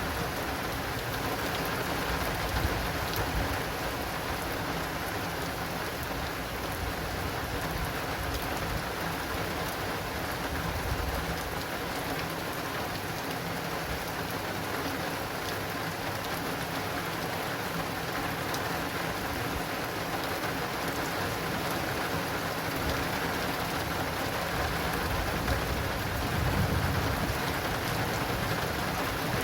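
Heavy, steady rain drumming on an acrylic rain awning, with low rumbles of thunder swelling a few times, most strongly near the end.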